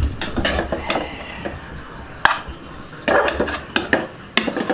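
A metal spoon scraping and knocking against a metal cooking pot while scooping out cooked rice. The sounds come in short clusters, with a single sharp clink about two seconds in.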